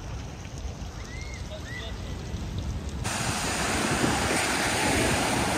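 Sea surf washing onto a sandy beach, with wind buffeting the microphone. The wash is soft at first and turns abruptly louder and fuller about three seconds in.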